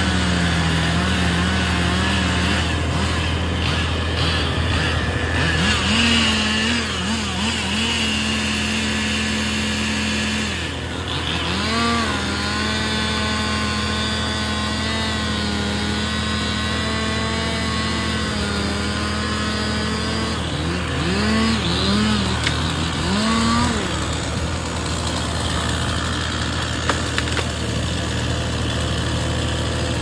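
A grapple truck's engine running steadily to power the loader's hydraulics as the grapple is worked, with a higher engine note that holds for long stretches and swoops up and down several times, most around 6 to 8 seconds and again around 20 to 24 seconds in, as the throttle changes.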